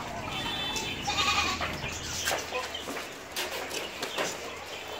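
Herd of young male Kota goats bleating in short calls, the loudest about a second in, over scattered knocks and shuffling from the crowded pen.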